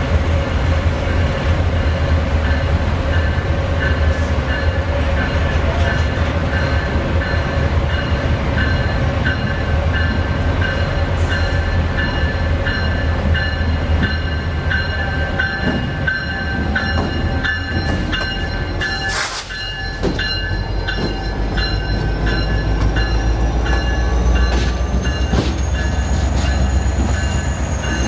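Two GE P42DC diesel locomotives running light at low speed, their 16-cylinder engines giving a deep steady rumble while the locomotive bell rings in an even, repeating rhythm. A high whine climbs in pitch over the last several seconds.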